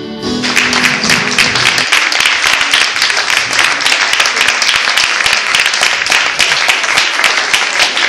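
Audience applauding loudly, starting about half a second in as the music fades out.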